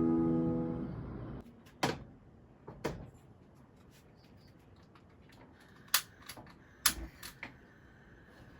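Soft background music fades out, followed by a handful of sharp clicks and knocks, the sound of things being handled in a small room.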